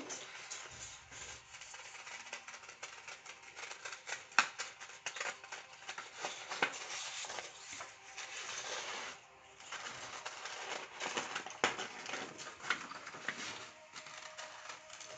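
Scissors snipping through a sheet of paper, cutting out a traced circle: a run of irregular sharp blade clicks over paper rustling.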